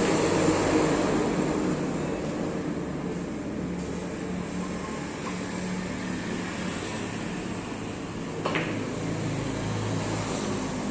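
Steady low mechanical hum, with a sharp click of carom billiard balls striking each other about eight and a half seconds in.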